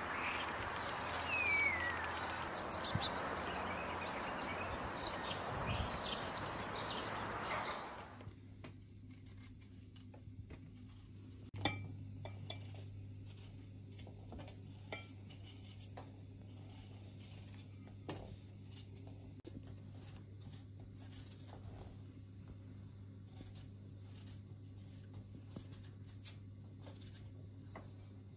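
Outdoor noise with bird chirps and calls for about eight seconds, then a sudden change to a quiet room. There, a small knife makes scattered faint clicks and scrapes as fruit is peeled, over a low steady hum.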